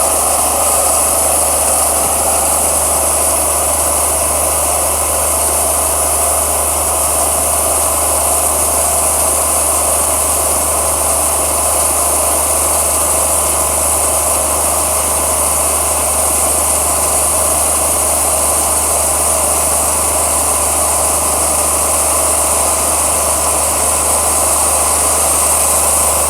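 Wood-Mizer LT40 Wide Super diesel sawmill running steadily, its band blade cutting through a walnut log at full width: a steady low diesel hum under a high, hissing whine from the blade in the wood.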